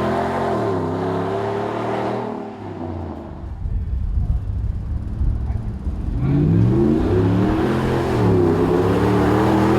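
Dodge Ram 1500's 5.7-litre Hemi V8 running through a Flowmaster Outlaw dual-outlet muffler and being revved. The revs fall away to a low, uneven idle rumble in the middle, then climb again about six seconds in and hold up near the end.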